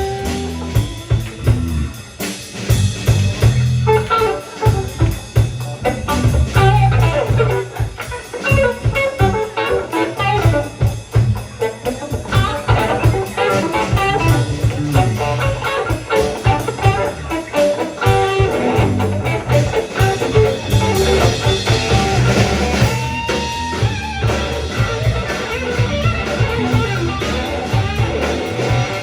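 Rock band playing an instrumental passage: a guitar picks out a melodic line over bass guitar and a drum kit.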